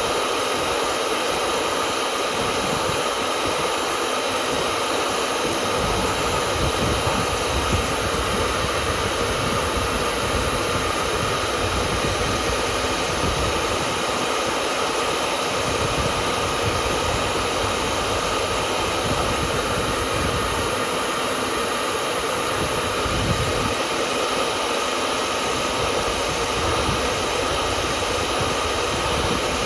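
Hair dryer running steadily: an even rush of air with a faint constant whine on top.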